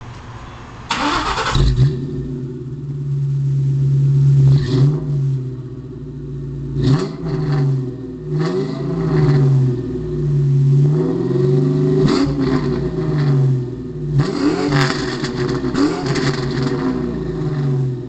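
2000 Ford Mustang GT's 4.6-litre V8 breathing through Flowmaster Super 44 mufflers and an off-road X-pipe: it starts and catches about a second in, then idles and is revved several times, each rev rising and falling back to idle.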